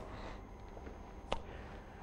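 Faint room tone in a lecture hall, with a single short, sharp click a little past a second in.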